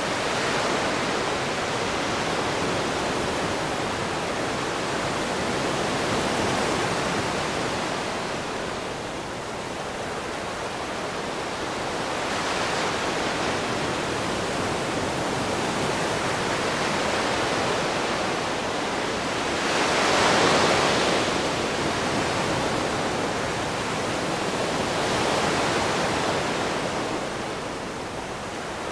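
Gentle ocean waves washing ashore: a steady hiss of surf that swells as each wave breaks, about every six seconds, with the biggest wave about twenty seconds in.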